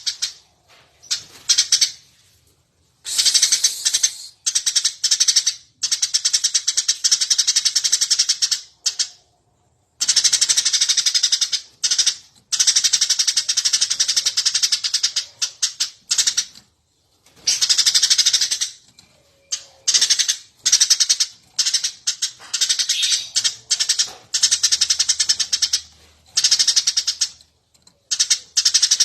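Eurasian tree sparrow chirping rapidly and tirelessly, in loud dense chattering bouts of one to several seconds broken by short pauses.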